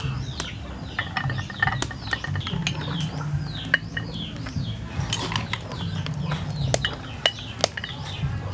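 Cooked snail shells clicking against a ceramic plate as they are set down one after another: a string of sharp, irregular clicks. Birds chirp throughout.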